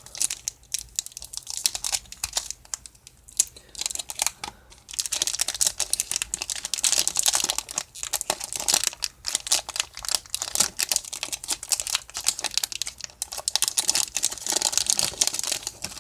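The wrapper of a 1993 Topps Series 2 baseball card pack being torn open and crinkled by hand: a dense run of irregular crackles that grows louder about five seconds in.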